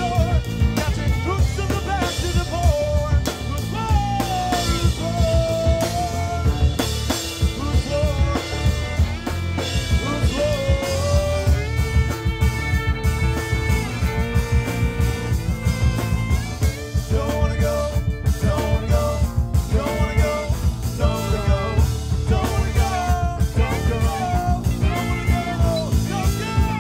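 Live band playing a song: drum kit keeping a steady beat under bass, guitar, banjo and violin, with a wavering melodic line on top.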